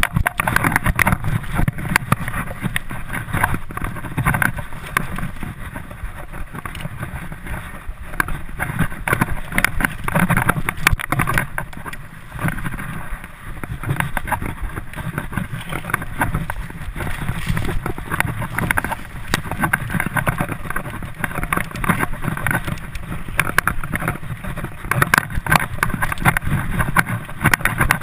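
Mountain bike riding fast down a dirt trail: wind buffets the microphone, the tyres rumble over dirt and roots, and the bike rattles with frequent knocks.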